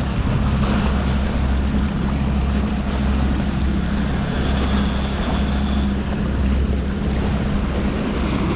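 Boat engine running steadily at trolling speed, a constant low hum, with wind buffeting the microphone.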